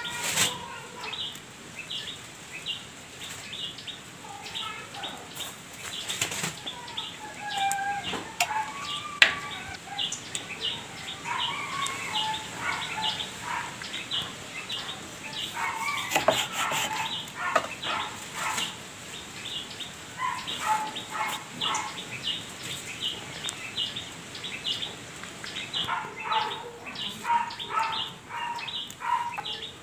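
Birds chirping busily in rapid short chirps, mixed with whistled calls that rise and fall, and a few sharp knocks.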